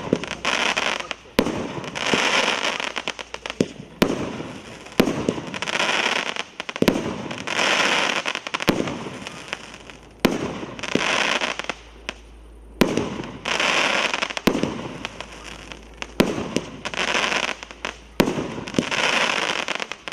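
Fireworks World GP499 firework firing shot after shot: each sharp bang is followed by about a second of crackling, repeating every two seconds or so.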